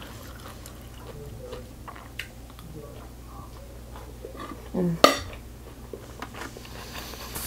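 Wooden spoon on a ceramic plate: small scattered clicks as the last bite is scooped, then one sharp clack about five seconds in as the spoon is set down on the plate.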